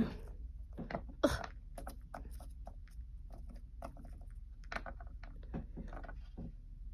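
Plastic Littlest Pet Shop figures being handled and set down on a wooden table: scattered soft clicks and taps, with one sharper knock about a second in.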